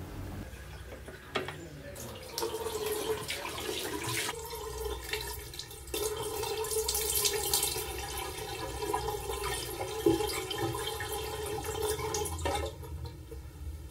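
Bathroom tap running into a sink. It starts about two seconds in and shuts off near the end.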